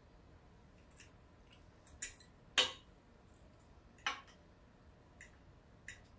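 Knife and fork clicking and scraping against a plate as food is cut: a handful of short, irregular clicks, the loudest a little past two and a half seconds in.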